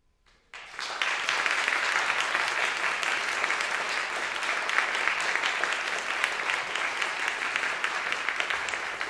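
Audience applauding, starting suddenly about half a second in and going on steadily.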